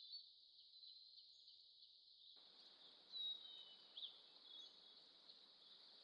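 Faint outdoor nature ambience: a steady high buzz with a few faint bird chirps near the middle, and a soft hiss coming in a little before halfway.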